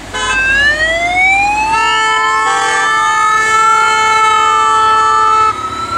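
Siren of a race escort vehicle winding up in a slow rising wail, then wavering up and down, while a vehicle horn sounds a long steady blast over it that stops shortly before the end.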